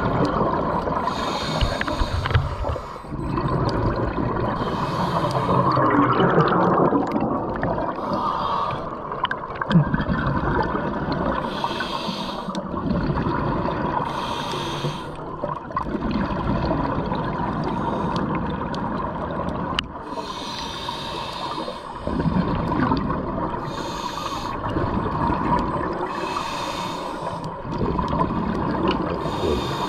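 A scuba diver breathing through a regulator underwater. There is a hiss with each breath and a burst of exhaled bubbles every few seconds, over a steady hum.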